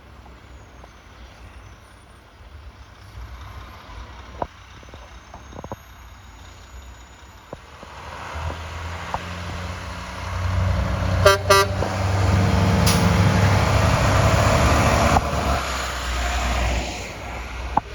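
A heavy truck approaches and passes close by, its engine running under a broad rush of tyre and road noise that is loudest in the second half. A little after it gets loud it gives two short horn toots.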